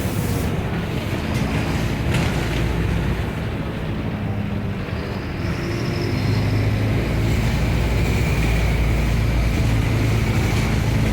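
Bus engine running as the bus drives, a steady low drone that grows louder a little past halfway.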